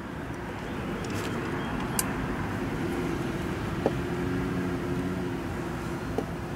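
Steady road traffic in the background, with a vehicle's engine hum swelling and fading through the middle. Three small clicks, about 2, 4 and 6 seconds in, come from hands threading the valve-cover bolts.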